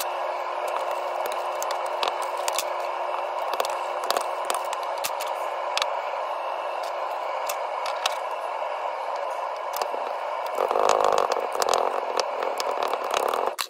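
Red casting sand being packed into a small metal casting flask with a wooden stick: scattered taps and scrapes, with louder ramming about three-quarters of the way through. A steady whirring hum runs underneath.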